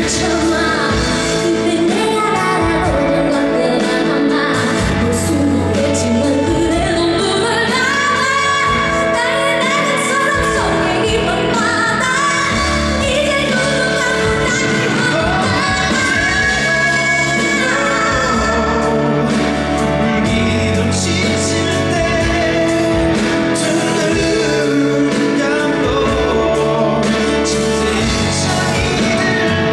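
A female vocalist singing a Korean pop song with band accompaniment.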